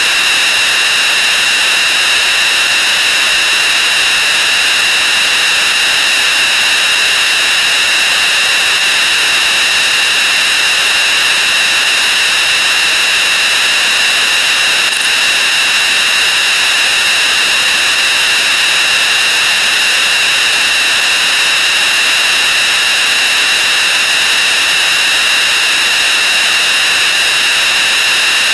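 A loud, unchanging wall of harsh noise with a shrill, whistly edge: a great many counting sound effects layered and sped up so far that they blur into one steady hiss.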